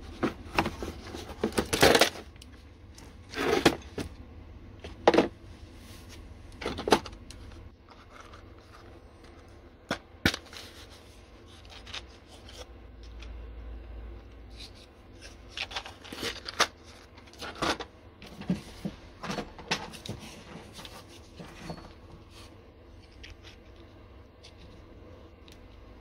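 Hard plastic rotary-tool case being unlatched and opened, then small bits and plastic parts being handled: scattered clicks, clacks and scrapes, loudest in the first seven seconds.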